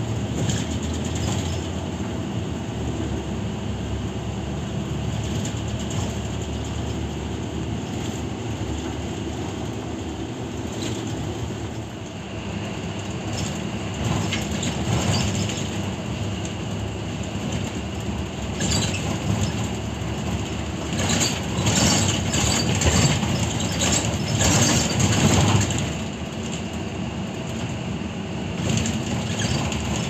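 Interior of a city bus driving along a snow-covered street: steady engine drone and road noise, louder for a few seconds about twenty seconds in.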